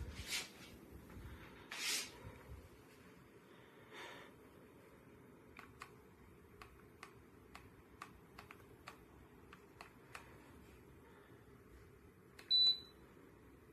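Light handling rustles and a series of small clicks, then one short, high electronic beep near the end, the loudest sound.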